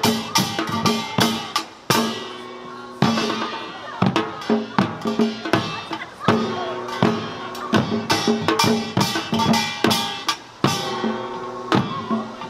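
A Korean samulnori ensemble playing a fast Samdo seated-style rhythm: janggu hourglass drums struck with sticks, small kkwaenggwari gongs clanging, and a jing gong. There are two brief lulls, about two seconds in and near the end, where the ringing dies away before the strokes come back in.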